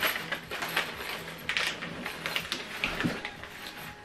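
Clear plastic bag of small metal fittings being handled: irregular rustling with light clinks and clicks of the screws and fittings inside.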